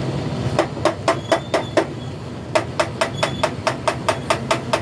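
Rapid hammer taps during a truck radiator tank overhaul, about five a second, in two runs with a short pause between them.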